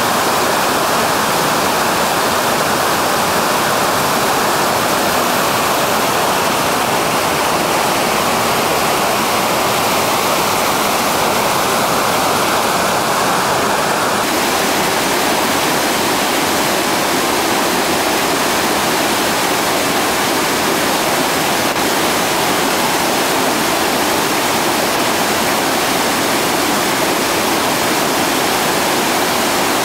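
Loud, steady rush of whitewater rapids, crashing water filling the sound without a break. A faint high tone runs under the first half and stops at an edit about halfway through.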